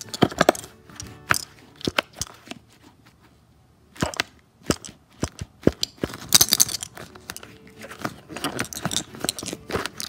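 Marbles inside an air-filled rubber balloon clicking and knocking against each other as the balloon is squeezed and rolled in the hand, with a brief rubbing of the balloon against the hand about six seconds in. The clicks come in uneven clusters, with a quiet pause around three seconds in.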